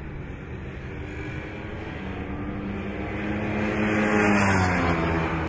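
Racing superbike engines at high revs, growing louder as the bikes close in and passing the microphone about four seconds in, the engine pitch dropping as they pull away.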